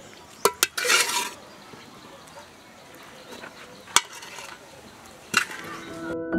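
A serving spoon clinking and scraping on a plate as stew is dished out: two sharp clinks about half a second in, a short scrape around one second, then single clinks near four and five and a half seconds. Music with steady piano notes starts near the end.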